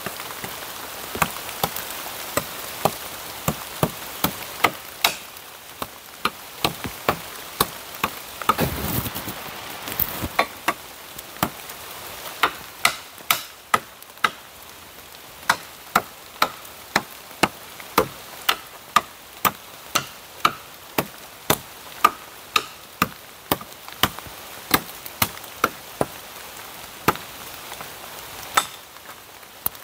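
Dry wood being chopped with a blade: a steady series of sharp chops, a little over one a second with a few short pauses, over rain falling.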